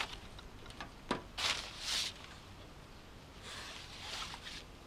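Soft rustling of paper and a thin fabric scarf being handled on a table, in a few short bursts, with a light click about a second in.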